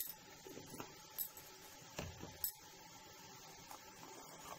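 A few faint, sharp clinks and light knocks of a metal spoon against a steel bowl.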